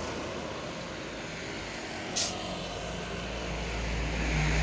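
A steady low rumble that grows louder toward the end, with one short hiss about two seconds in.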